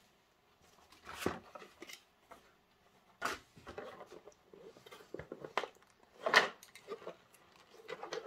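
Cardboard model-kit box being handled: the box is slid out of its printed cardboard sleeve and lifted, giving a series of short scrapes, rustles and knocks of cardboard, the loudest about six seconds in.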